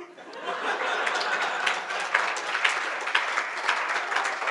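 Audience applauding, a dense patter of many hands clapping that swells in about half a second in and then holds steady.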